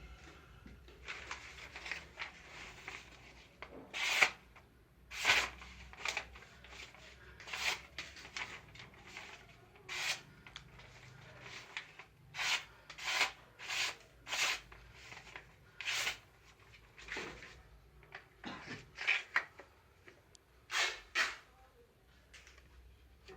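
Machete blade worked by hand in short scraping strokes against an abrasive, irregular, roughly one stroke a second, some strokes louder than others. No steady motor is running.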